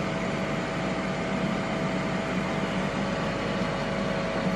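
Ninja Foodi Smart XL Grill running in air-fry mode with a batch of potatoes inside: a steady fan whoosh with a faint constant hum.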